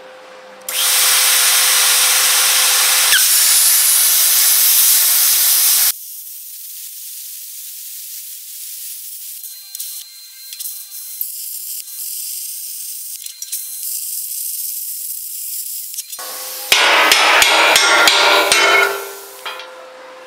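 Handheld plasma cutter cutting through steel plate: a loud steady hiss for about five seconds. A quieter hiss with scattered clicks follows, then a second, shorter cut that crackles near the end.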